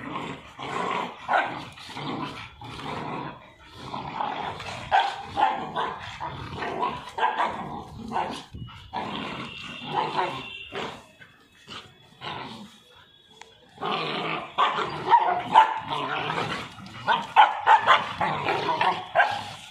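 Young dogs play-fighting, growling and barking in quick irregular bursts, with a short lull a little past the middle before a louder spell near the end.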